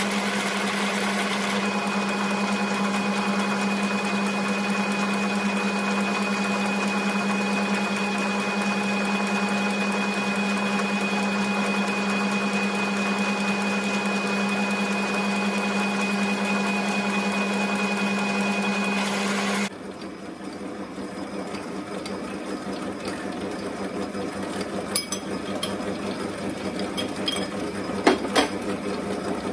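South Bend lathe running under power, a steady hum with a high whine in it, while the parallel thread is chased. About two-thirds of the way through this cuts off abruptly and gives way to the lathe running more quietly, with a few sharp clicks near the end.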